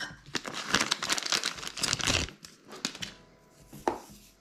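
Plastic crinkling and rustling as it is handled, dense and crackly for the first two seconds, then sparser, with a single sharp click near the end.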